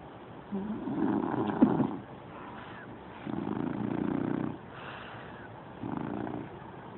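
A sleeping pet snoring: three snores about two and a half seconds apart, the last one shorter.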